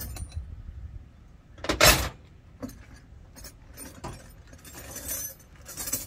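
Metal hand tools clinking and rattling as they are rummaged through in a canvas tool bag, a few separate clinks with one louder clatter about two seconds in.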